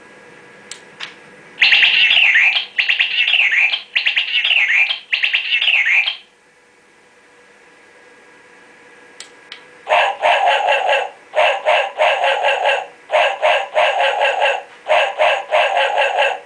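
Motion-sensor chime receiver playing its selectable alert sounds through its small speaker. First comes a bird-like chirping tone in four bursts of quickly gliding high notes. After a pause of a few seconds a second tone follows in five groups of rapid repeated pulses.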